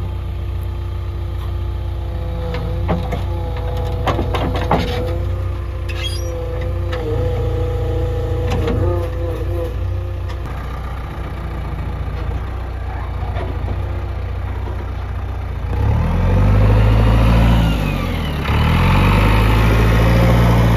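JCB Xpert backhoe loader's diesel engine running steadily, with a few sharp metallic clicks and knocks in the first half, then revving up twice near the end, its pitch rising and falling with each surge.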